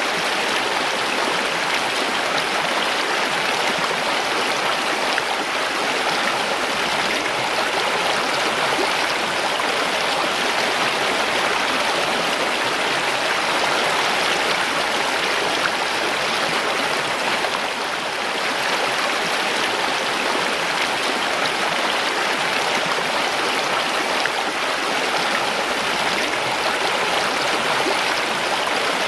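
Mountain stream rushing over rocks, a steady dense splashing and gurgling of water.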